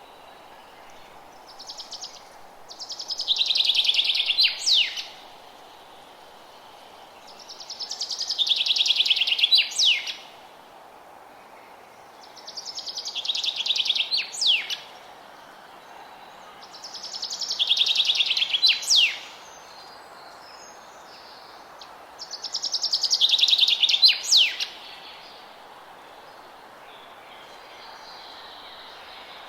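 A songbird repeating the same short song five times, about every five seconds: each is a fast trill that grows louder and ends in a quick downward-sweeping flourish. A faint steady hiss lies underneath.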